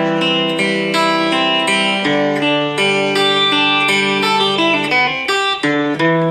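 Electric guitar playing a riff of picked notes and chords, changing several times a second, with a short break about five and a half seconds in.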